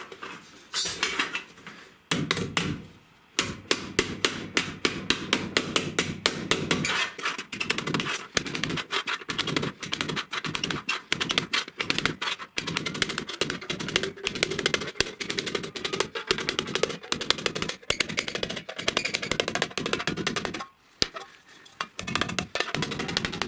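Hammer tapping quickly around the rim of a galvanized steel pipe, several blows a second, folding its narrow flange down over a fitted flat end cap; each blow rings briefly off the thin sheet metal. The tapping breaks off briefly near the end, then a few more blows follow.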